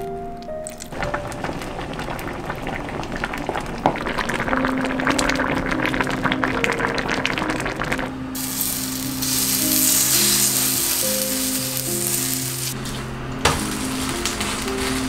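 Crab stew (kkotgetang) in a steel pot crackling as it heats and then boiling hard with a dense bubbling hiss from about eight seconds in. Near the end a kimchi pancake sizzles in a frying pan. Soft background music plays under it all.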